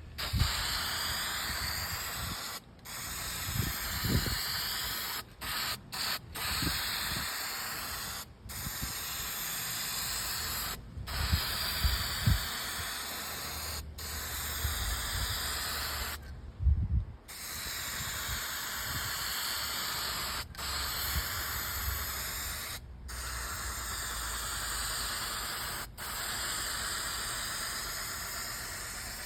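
Aerosol spray can of Krylon Dual Super Bond hammered paint hissing in repeated bursts of a few seconds each, with about a dozen short breaks as the nozzle is released and pressed again. Gusts of wind rumble on the microphone now and then underneath.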